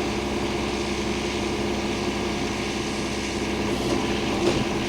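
An engine idling steadily, a constant low hum, with one short knock about four and a half seconds in.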